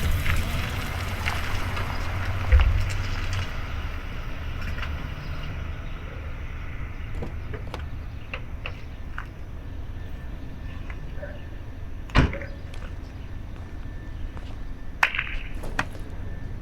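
Steady low background rumble with a few sharp knocks, the loudest about twelve seconds in.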